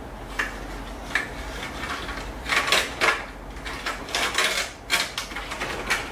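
Short plastic clicks and rattles from a hand-held LEGO brick magnetic maze being played, about a dozen irregular knocks as the board is handled and the playing piece moves through it.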